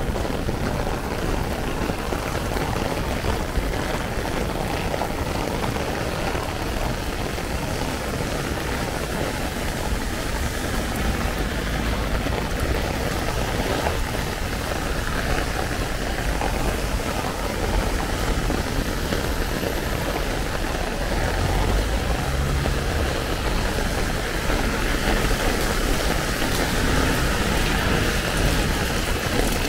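Heavy rain falling on an umbrella over the steady noise of city street traffic on wet pavement. A low rumble briefly swells about two-thirds of the way in.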